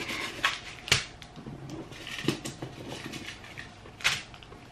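Tissue paper rustling and crinkling as it is pulled out of a new handbag, in irregular handfuls, with sharper crackles about a second in and again near the end.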